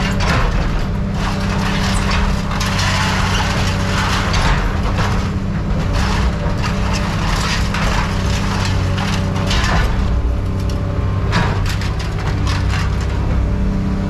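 An engine running steadily, with frequent sharp metallic clanks, cracks and rattles over it.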